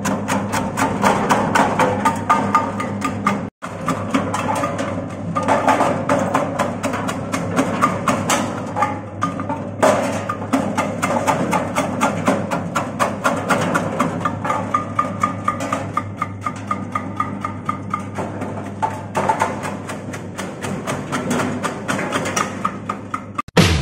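Electric rhizome slicing machine for ginger and turmeric running: a steady motor hum under rapid, even knocking of the cutter as it slices.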